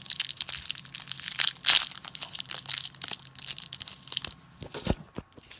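Plastic granola bar wrapper being torn open and handled: irregular crinkling and crackling, loudest about a second and a half in, dying down near the end.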